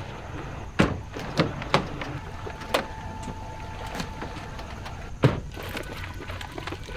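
Car doors being handled and shut: a series of sharp knocks and thuds, the loudest about a second in and again about five seconds in. A faint steady high tone runs for about a second and a half in the middle.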